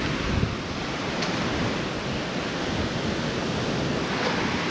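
Steady rushing noise of wind and surf, with wind blowing across the microphone.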